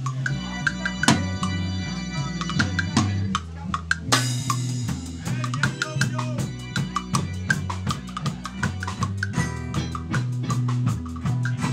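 Live band music: a drum kit played busily with quick snare and cymbal hits over a low bass line that steps from note to note.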